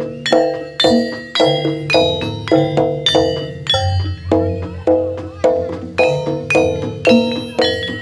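Javanese gamelan-style instrumental music: a steady run of struck metal-keyed notes ringing over a sustained low bass.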